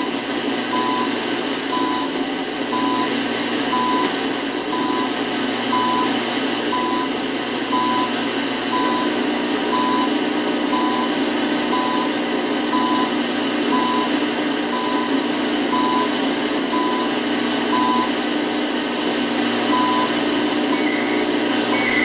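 CHU Canada time-signal station on 3.330 MHz heard through a home-built shortwave receiver: a short 1 kHz beep once a second under heavy hissing static, with a brief higher-pitched data warble near the end. The weak signal and loud noise reflect poor atmospheric conditions.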